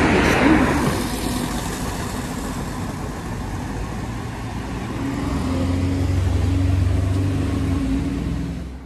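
Busy street traffic, with one motor vehicle's engine passing close: its low, steady note grows louder about five seconds in and fades again near the end.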